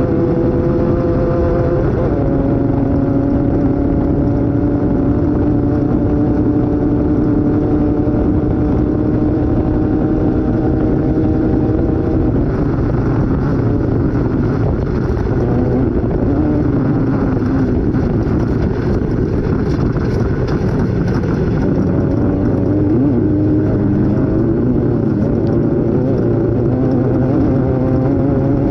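Off-road race vehicle's engine running hard at fairly steady revs under heavy rumble and rattle from rough ground. The engine note holds steady at first, turns rougher and less clear through the middle, and comes through cleanly again near the end.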